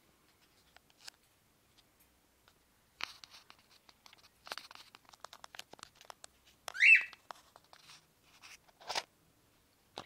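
A pet parrot gives one short, loud squawk about seven seconds in that rises in pitch, over a run of scratchy clicks and rustles that start about three seconds in.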